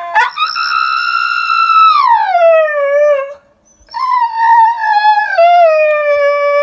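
A husky howling: a long, high howl that holds its pitch, then slides down and stops about three and a half seconds in. After a short break a second, lower howl falls in pitch and wavers toward the end.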